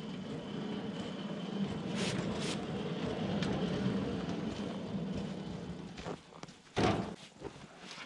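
An engine running steadily, dying away about six seconds in, then one loud thump.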